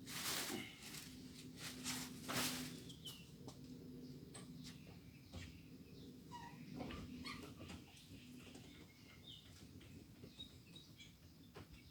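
Two brief scratchy rustles near the start, then scattered faint, short high chirps, over a low steady hum: a Eurasian nuthatch moving and calling at its nest.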